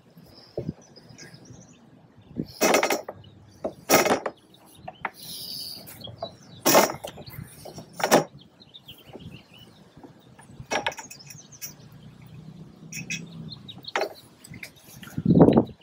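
Hard plastic rifle case knocking against the roof rack as it is handled into position: a series of irregular sharp knocks, about seven of them, with a bird chirping faintly about five seconds in.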